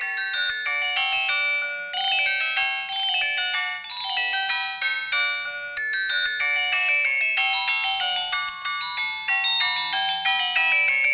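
Philips E106 feature phone playing a ringtone: a quick melody of short, thin-sounding electronic notes with no bass.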